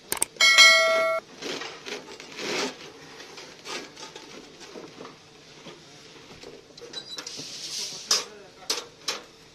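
A loud bell-like ding about half a second in, cut off sharply after under a second, followed by steel reinforcing bars scraping, rattling and clinking as they are handled on a bar bending machine's steel table, with a few sharp knocks near the end.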